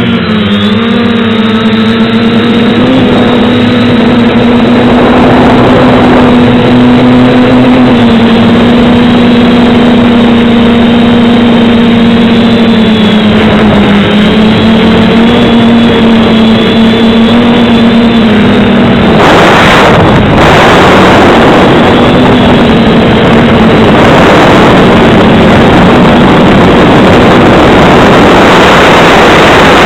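Electric motor and propellers of an FPV aircraft, recorded on board: a loud, steady buzzing hum that dips slightly in pitch now and then. After about twenty seconds the hum sinks under a noisier rush of wind over the microphone.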